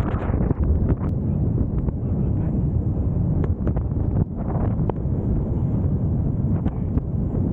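Wind buffeting the microphone: a loud, steady low rumble with a few short clicks.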